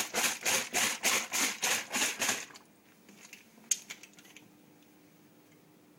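Water and soaked toilet paper sloshing in a plastic bottle shaken hard, about four shakes a second, stopping about two and a half seconds in. A single sharp click comes about a second later.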